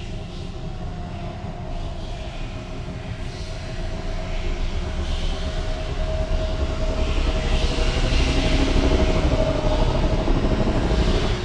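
Steady low rumbling drone with a faint held hum above it, swelling louder through the second half, then dropping away suddenly near the end.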